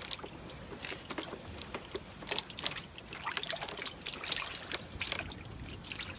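Shallow muddy water in a drained ditch trickling and splashing, with many short, irregular splashes and drips as hands search through it for fish.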